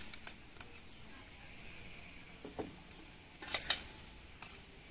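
A few soft clinks and taps as jackfruit pickle is scooped by hand from a steel pot and dropped into a plastic jar, the loudest pair about three and a half seconds in.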